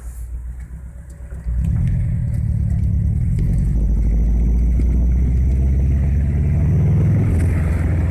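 Honda Civic pulling away: low engine and road rumble that rises abruptly about a second and a half in and then holds steady.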